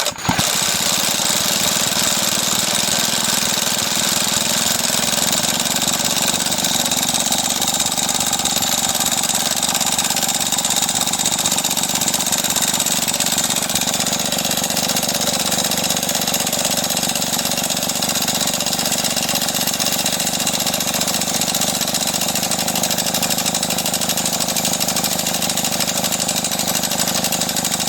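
An old Homelite Super chainsaw engine, with no fuel in it, spun over steadily and without a break by a battery power tool, held at an even speed. The engine does not reach full speed; the spark plug has been making a sound.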